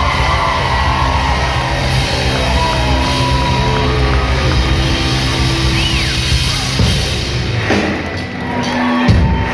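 Rock band playing live through a club's PA, with electric guitars, bass and drums, heard from the audience. Near the end the music breaks off abruptly and a different passage starts.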